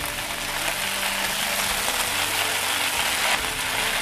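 Bok choy sizzling in hot oil in a wok as it is stir-fried and turned with a wooden spatula, with a steady faint low hum beneath.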